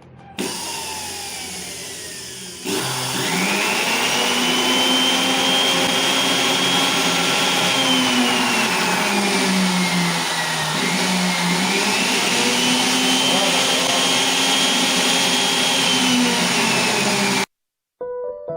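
Old angle grinder's motor running at high speed with a high whine. It spins up about three seconds in, its pitch sags for a couple of seconds and then climbs back. It is a test run of the repaired grinder, and the sound cuts off abruptly near the end.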